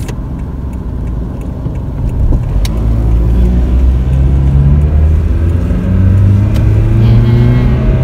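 Car engine and road noise heard from inside the cabin as the car accelerates: the rumble grows louder about two seconds in and the engine note climbs steadily.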